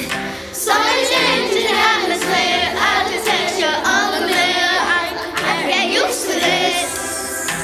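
Several voices singing a pop song together over backing music.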